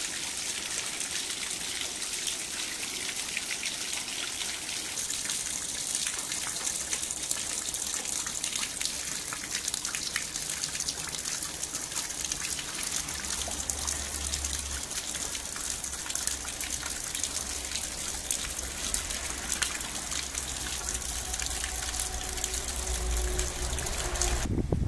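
Rainwater falling in streams and drops into a shallow muddy puddle, splashing steadily with many small drip ticks.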